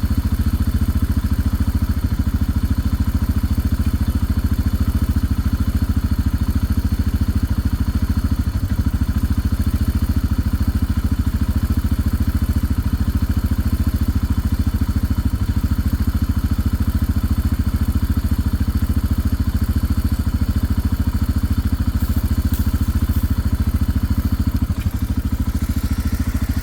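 Engine of a small off-road vehicle running at a steady speed, its firing pulses even and unbroken.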